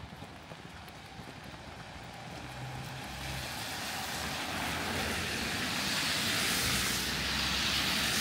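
A car passing on a wet road: the tyre hiss on the wet surface swells over several seconds, is loudest near the end, then starts to fade, over a low engine hum.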